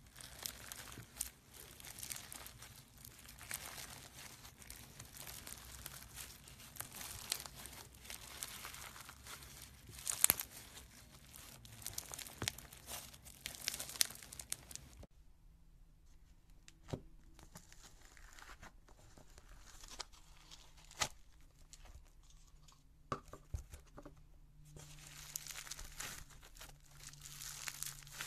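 Slime squeezed and kneaded by hand, giving a dense crackling and popping. About halfway through it drops to a few scattered sharp pops, then dense crackling returns near the end as foam-bead floam is stretched and squeezed.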